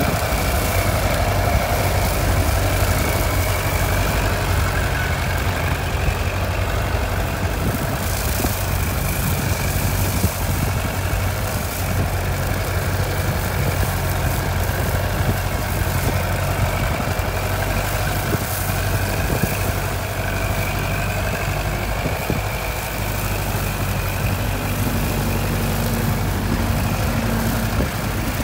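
Kubota tractor's diesel engine running steadily under load while its side-mounted boom mower cuts grass, a constant low hum with a steady higher whine over it.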